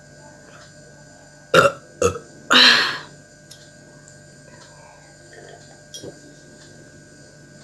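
A woman belching up the gas from gulped carbonated Sprite. Two short sharp sounds come about a second and a half in, then one longer, louder burp.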